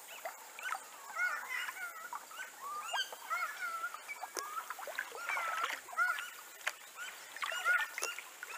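Animal calls: many short chirping calls in quick succession, with a few faint clicks among them.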